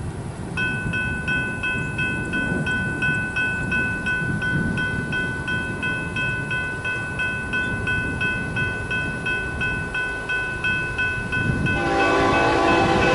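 Railroad grade-crossing warning bell starts ringing about half a second in and repeats evenly at about three strokes a second. Near the end the approaching Norfolk Southern freight locomotive's Nathan K5HL five-chime air horn comes in loud over the bell.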